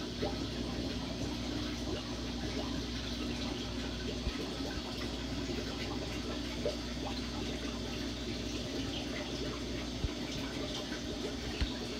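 Aquarium water circulating: a steady trickle and splash of running water over a constant low hum, with a few faint clicks.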